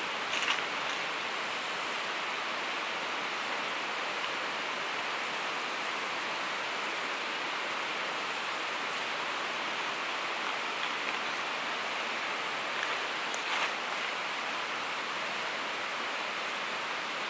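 Steady rush of river water flowing over a shallow, rocky bed, an even hiss. A couple of brief clicks sound over it.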